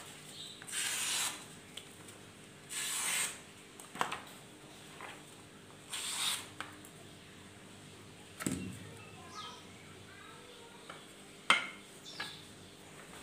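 A golok blade slicing paper in three short hissing strokes, with several sharp knocks from handling the knife. The loudest knock comes near the end.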